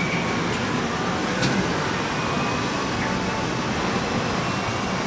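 Steady din of a car assembly plant floor: machinery and ventilation noise mixed with the rolling of a moving cart. A few faint short electronic tones sound, and there is a sharp click about a second and a half in.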